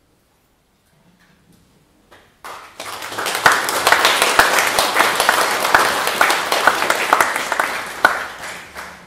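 Audience applauding at the end of a piece: a quiet couple of seconds, then clapping from many hands starts about two and a half seconds in and fades out near the end.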